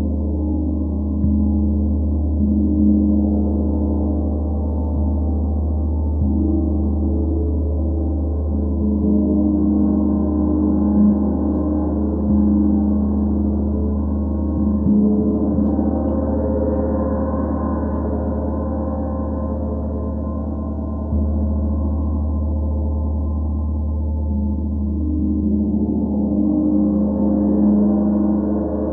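A 32-inch Sri Yantra gong played with mallets, a continuous deep, humming wash of tones. It swells three times as fresh strokes build the sound up and then ebbs back.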